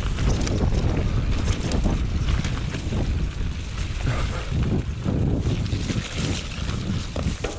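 Mountain bike riding fast down a rough, loose trail: wind buffeting the action-camera microphone, tyres rumbling over the ground, and the bike rattling and knocking over bumps and drops.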